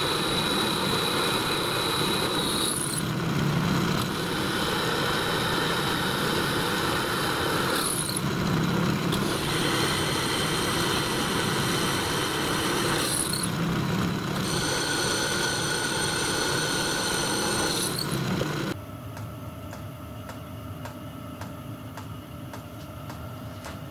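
Pillar drill drilling holes in a cast iron valve chest cover: a steady high-pitched whine and squeal in four spells of a few seconds, with short breaks between holes. About nineteen seconds in it cuts off suddenly, leaving a much quieter steady hum.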